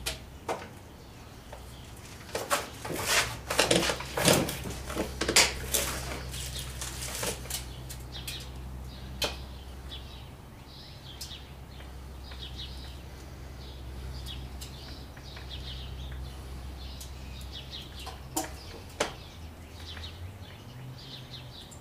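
Hand tools clinking and knocking against the rocker box bolts of a Harley-Davidson V-twin engine. A cluster of sharp metal clinks comes a few seconds in, then occasional single taps over a steady low hum.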